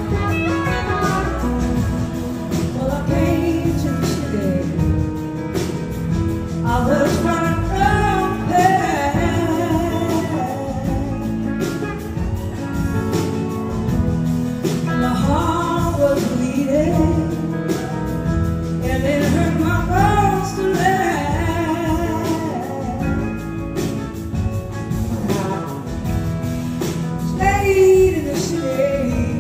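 Live blues-rock band playing, with electric guitars, bass and drums. A woman sings the lead vocal over them.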